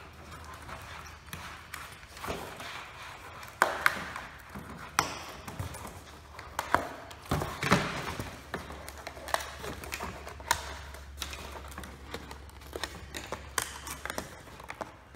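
Die-cut cardboard knockouts being pushed out of a flat display blank by hand: an irregular string of sharp snaps and taps, the loudest about four and eight seconds in, with the rustle of the card being handled.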